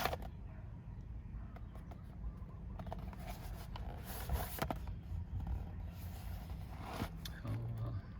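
Snack-bar packaging being handled: a few scattered light taps and rustles over a steady low hum.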